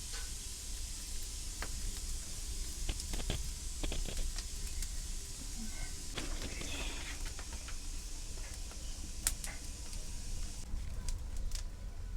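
Fire hissing steadily with scattered sharp crackles as chicken feathers are burned for wachippa (tite). The hiss drops away near the end.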